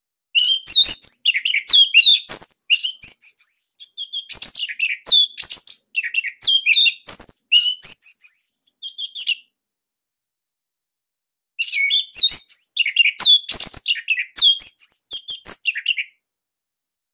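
Orange-headed thrush (anis merah) singing a fast, varied, high-pitched song in two long bouts, the first about nine seconds and the second about four and a half, with a short pause between.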